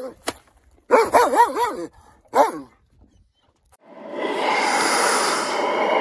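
A fluffy malamute-type dog vocalizing in a string of wavering, howl-like 'woo-woo' calls that rise and fall in pitch, stopping about two and a half seconds in. About four seconds in, a steady hiss comes up.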